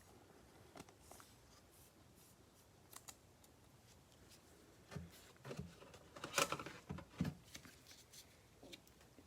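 Trading cards being handled at a table: a few faint clicks, then a busier patch of sliding, tapping and rustling about five seconds in that lasts a couple of seconds.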